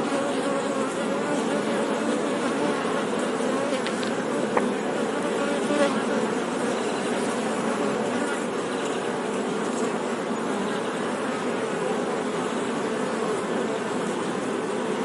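Honey bees buzzing in a steady, dense hum of many overlapping wavering tones, with two brief clicks about four and six seconds in.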